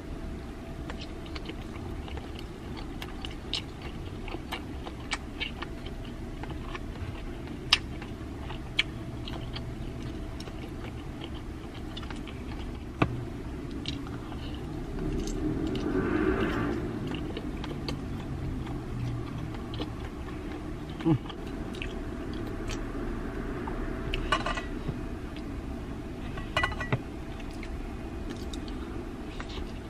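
A person chewing and biting bakso (Indonesian meatballs) and fried tofu pieces dipped in chili sambal, with wet mouth clicks and smacks; a few sharper clicks stand out. About halfway through there is a short hum of the voice.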